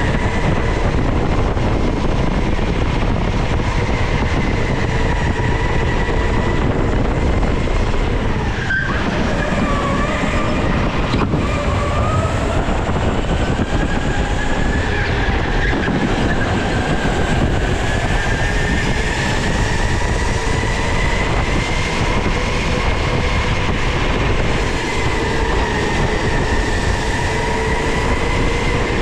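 Sodi indoor electric go-kart at speed: a steady motor whine over tyre and track noise, dropping in pitch as it slows for a corner about nine seconds in, then rising again as it accelerates. A single sharp knock comes just after the slowdown.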